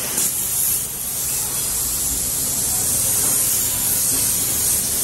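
Gravity-feed compressed-air spray gun hissing steadily as it sprays red paint onto a brake caliper.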